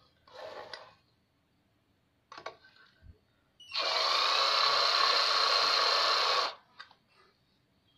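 Power drill-driver running steadily for nearly three seconds, from about halfway in, as it drives a screw into a bench grinder's motor end cover, then stopping abruptly. Before it come a few short handling knocks and clicks.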